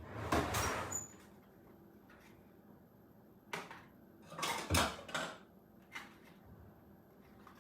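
Kitchenware being handled: a scrape or rustle in the first second, then scattered knocks and clinks of dishes and utensils, a cluster of them past the middle.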